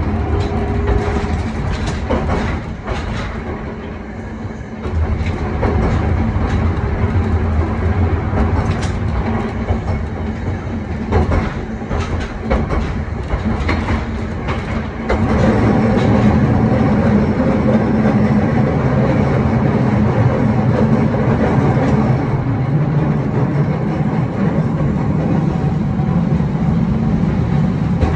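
Old wooden tram with nose-suspended traction motors running along street track, heard from inside its cab: wheels clacking over rail joints, then from about halfway a louder, steady motor and gear hum as it picks up power.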